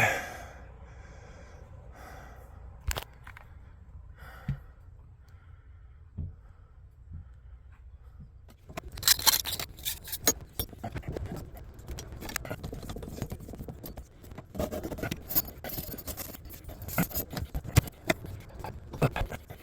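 Scraping, rustling and light metallic clicks of hands working with tools and pipe fittings. There are a few isolated clicks at first, then a busier stretch of scraping and clicking from about halfway.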